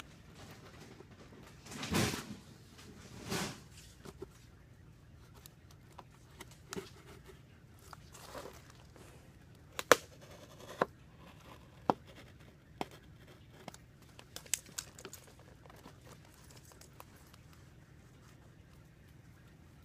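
Packing tape on a cardboard box being slit and torn open with a small blade: two longer tearing rasps about two and three seconds in, then scattered sharp clicks and taps of the blade and hands against the cardboard.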